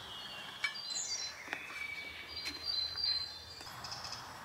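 Woodland birds singing and chirping in several high phrases, with three light clicks of metal camp cookware being handled.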